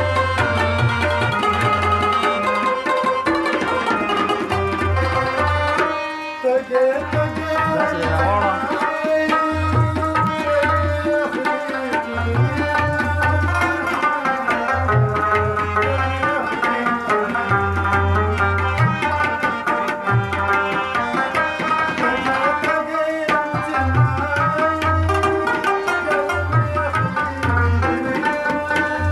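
Live Pashto folk ensemble: tabla drums keep a steady rhythm under harmonium and plucked rabab playing the melody. There is a brief drop in level about six seconds in.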